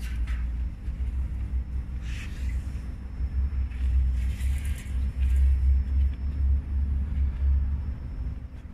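Low, uneven rumble with a steady low hum under it, and brief hissing, scraping noises about two seconds and again about four seconds in.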